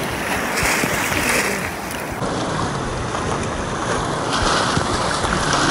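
Ocean surf breaking and rushing around a swimmer, heard close up with the microphone just above the water, coming in surges, with wind on the microphone.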